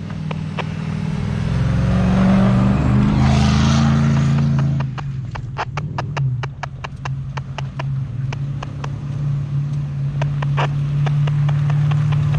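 A 4x4 SUV's engine running as it drives up a snowy track, swelling and revving up about two to four seconds in, then holding steadier. A run of sharp clicks and crackles joins it through the second half.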